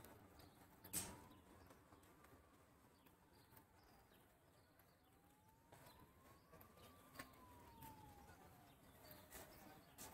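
Near silence: faint outdoor ambience, with a faint tone that slowly rises and falls and a single knock about a second in.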